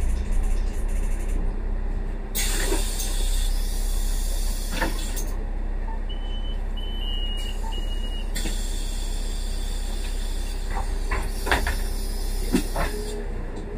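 Solaris Urbino 10,5 city bus heard from inside the passenger cabin: a steady low engine and running rumble. Stretches of hiss come and go over it, and a few short high beeps sound about six seconds in.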